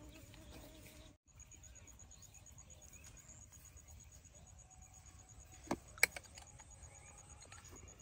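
Quiet open-field ambience with a steady, evenly pulsing high trill from an insect. The sound drops out briefly about a second in, and two sharp clicks come close together near six seconds, the loudest sounds.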